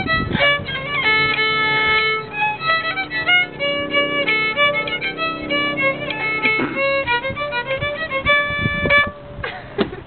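Solo fiddle playing a tune, a run of short and held notes, which stops about nine seconds in.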